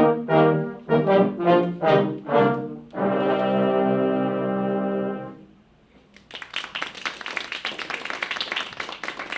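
Brass sextet playing the end of a sea chanty: a run of short, separate notes, then a final chord held for about two seconds and cut off together. About a second later the audience starts clapping and keeps it up.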